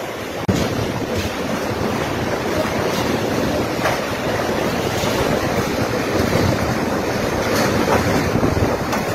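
Typhoon-force wind and driving rain: a loud, continuous roar with gusts buffeting the microphone, broken by a few sharp knocks.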